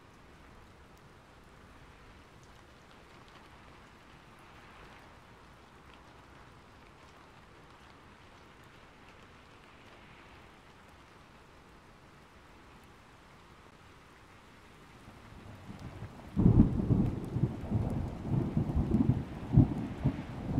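Faint steady rain, then a sudden loud thunderclap about three-quarters of the way through, followed by several more rumbling peals.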